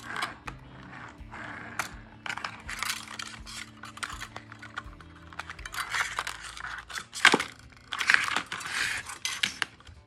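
Hard plastic clattering, scraping and clicking as a small toy RC truck and its remote are handled and turned over and the truck's battery compartment is opened, with one sharp click about seven seconds in.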